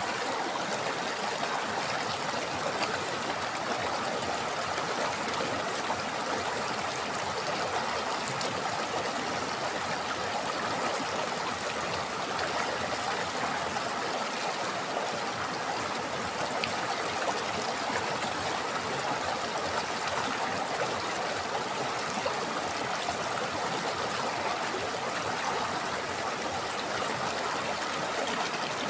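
River water flowing in a steady, even rush, unchanging throughout.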